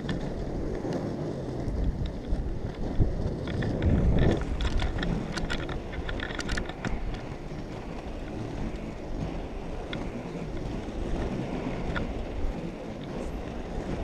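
Wind buffeting the microphone, over the rolling rumble of inline skate wheels on asphalt, with scattered clicks around the middle.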